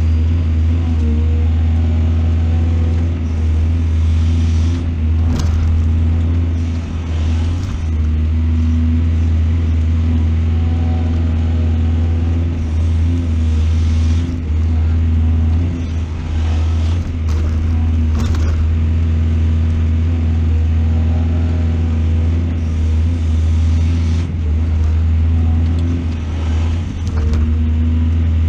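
Heavy excavator's diesel engine running steadily with a deep, constant drone, with a few brief knocks mixed in.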